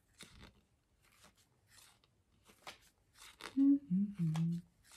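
Soft paper rustles and page turns as a small guidebook is leafed through, with a short murmur from a woman's voice about three and a half seconds in.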